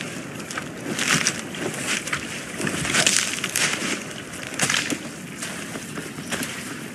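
Forest ambience from a film scene with no dialogue: irregular crunches and snaps, like dry twigs and leaves, roughly one or two a second, over a steady windy hiss.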